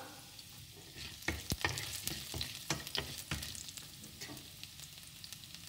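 Chopped garlic sizzling in hot oil with mustard seeds and dal in a nonstick frying pan, stirred with a wooden spatula: a steady sizzle with a run of sharp clicks and taps from about one to three and a half seconds in.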